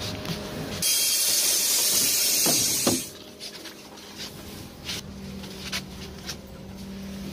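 Trolleybus pneumatic door gear venting compressed air: a loud hiss lasting about two seconds that cuts off sharply with a knock as the doors work. A steady low hum starts about two seconds later.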